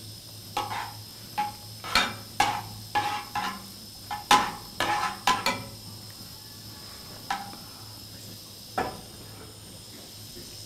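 Metal spoon clinking and scraping against an aluminium frying pan as a little oil is stirred in it: a quick run of clinks for the first five seconds or so, then two single taps.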